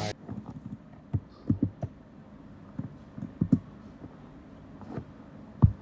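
A box being opened by hand: a scattered series of soft, low knocks and bumps as its parts are handled, with one louder knock near the end.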